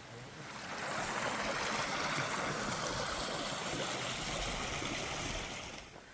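Mountain stream rushing: a steady hiss of running water that swells in about a second in and drops away near the end.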